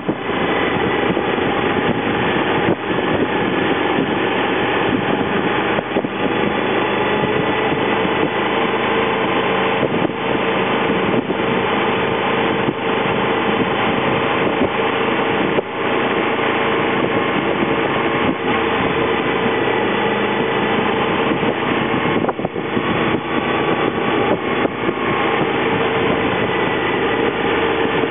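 Honda VFR's V4 engine running at a steady cruise while the motorcycle rides along, heard from on the bike under a constant rush of wind and road noise.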